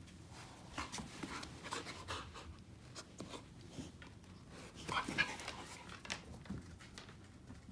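A Great Dane puppy and adult dogs playing: panting and scuffling, with short irregular sounds and a louder one about five seconds in.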